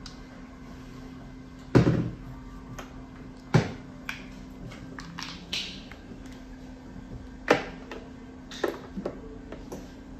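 Sharp plastic clicks and knocks from a dialyzer being clipped into its holder and blood-line tubing being handled on a Fresenius 5008S dialysis machine. The loudest come about two and three and a half seconds in, then more around seven and a half to ten seconds, over a steady low hum.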